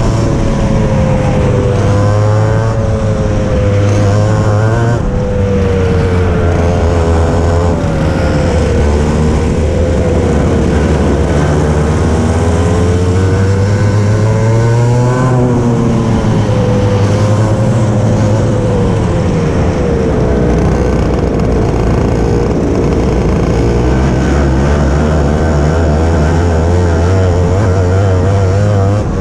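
Racing kart engine heard from the driver's seat, loud throughout. Its pitch rises under acceleration and falls as the kart slows, again and again through the laps.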